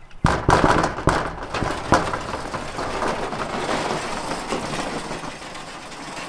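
Corrugated metal roll-up door being raised: a sudden loud clatter about a quarter second in, then a steady rattle of the slats rolling up that slowly fades.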